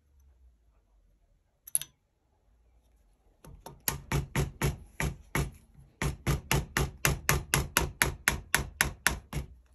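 Hammer tapping a steel pin punch in quick, regular strikes, about four a second with a brief pause midway, driving a barrel pin out of the wooden stock of a .45-calibre percussion long rifle. A single sharp tick comes about two seconds in, before the tapping starts.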